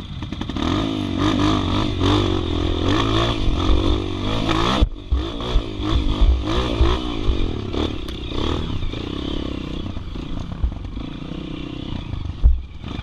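Dirt bike engine revving up and down in bursts as it climbs a rough, rutted trail, heard close up from the bike itself, with the chassis knocking and clattering over rocks and ruts. The sound drops out briefly about halfway through, and a single hard thump stands out near the end.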